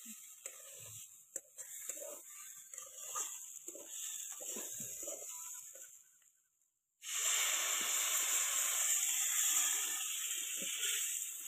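A metal spatula scrapes and clacks against a steel kadhai of rice and snails. About seven seconds in, a loud steady hiss starts as water poured into the hot pan boils up and sizzles.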